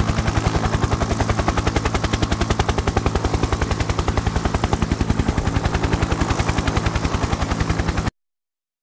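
Helicopter rotor beating in fast, even pulses, about ten a second, over a steady low engine hum. It cuts off suddenly near the end.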